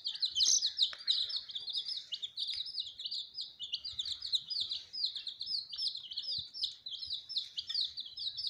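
Young chicks peeping nonstop, a fast run of short high notes, several a second, each falling in pitch.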